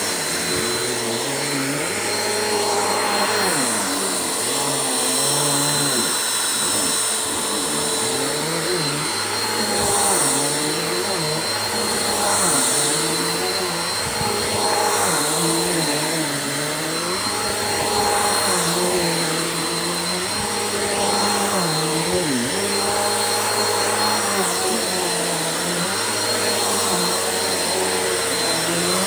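Bissell upright vacuum cleaner running steadily while cleaning a rug, a constant high whine over a lower hum that wavers up and down every second or two.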